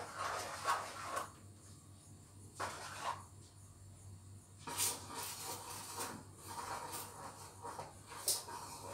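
Wooden spatula scraping and stirring a sticky rice mixture in a non-stick frying pan, with a few sharp knocks of the spatula against the pan. A faint steady low hum lies underneath.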